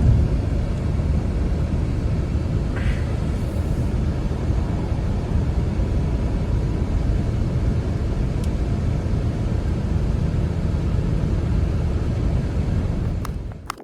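A steady low rumble that cuts off abruptly near the end.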